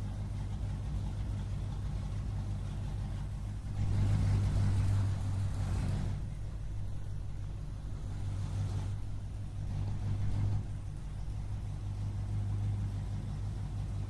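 American muscle car's engine running at a steady, deep idle, revved up for about two seconds some four seconds in, then given two shorter throttle blips.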